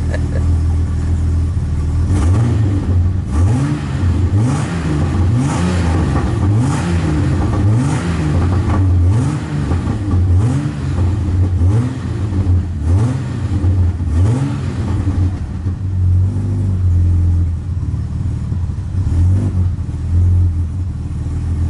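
Chevrolet Omega 4.1's 4.1-litre straight-six blipped over and over, about once a second, each rev rising and falling, then settling to a steady idle. Its exhaust has a rougher, louder note from a muffler with a tear of about 5 cm in it.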